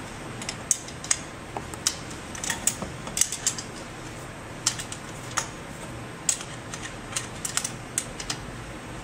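Irregular light clicks and taps of a hand tool and metal parts on the pump's mount ring, as its bolts are worked loose.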